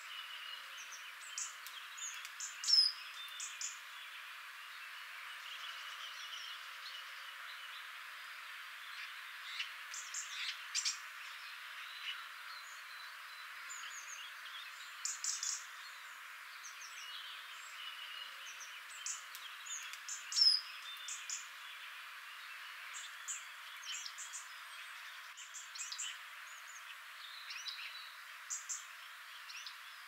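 Dawn chorus of garden birds: many short chirps and song phrases from several birds over a steady hiss, with the loudest calls about three seconds in and again about twenty seconds in.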